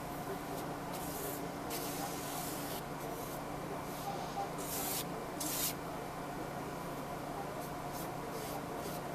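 Aerosol spray can being sprayed in several short hissing bursts, the longest about a second, over a steady low hum.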